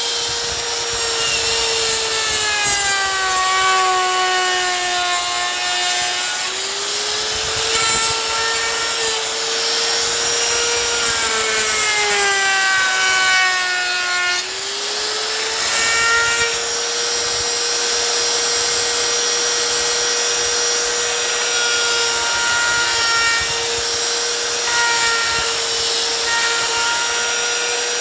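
Trim router running with a round-over bit, cutting along the edge of a glued wooden piece. Its motor whine sags in pitch twice in the first half, where the bit is under load, then holds steady. The owner calls the bit somewhat dull.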